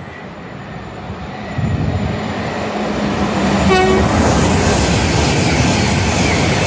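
GWR Hitachi Intercity Express Train (Class 800 series) running through the station at speed. The rush of wheels and running noise builds as it approaches, the horn gives one short toot about four seconds in, and then comes steady, loud running noise as the carriages pass close by.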